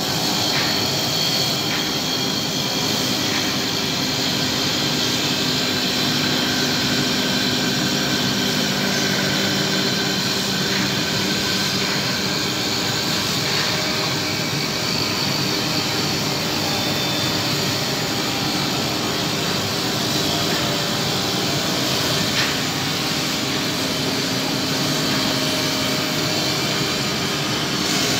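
CNC wood-turning lathe running as it turns a wooden baluster against a rotating bristle polishing brush: a steady mechanical whir and hiss with no breaks.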